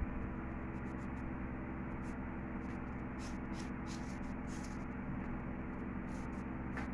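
A nail file rasps across a toenail in short, irregular strokes over a steady low hum.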